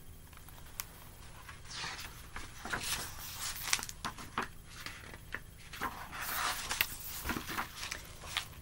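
Pages of a hardcover picture book being turned and the book handled: papery rustling with scattered small taps and knocks, starting about two seconds in.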